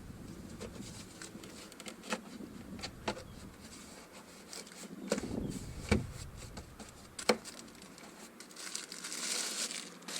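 Scattered sharp clicks and knocks from hand work on parts and tools, the loudest two about six and seven seconds in, followed by a brief hiss near the end.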